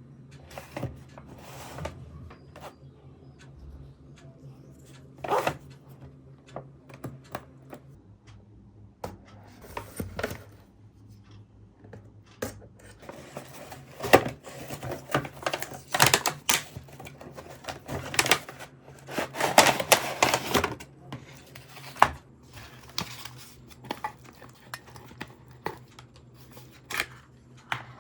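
Hands handling packaging: scattered clicks, taps and rustles, thickest and loudest in the middle stretch.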